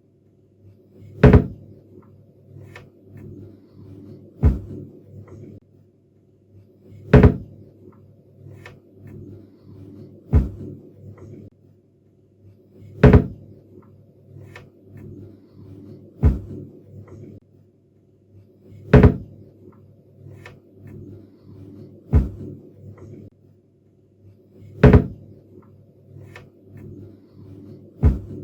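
Cabinet doors being shut, about ten sharp closes spaced roughly three seconds apart, with lighter clicks and knocks between them and a low steady hum underneath.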